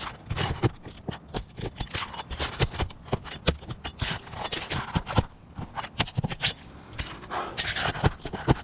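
Asphalt roof shingles being lifted and handled: a busy run of scrapes and sharp clicks as the tabs are bent up to check the nails underneath.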